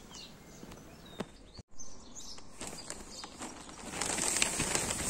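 Garden ambience with small birds chirping faintly, broken by a short dead gap about a second and a half in; from about four seconds a louder, crackly rustling with many small clicks comes in.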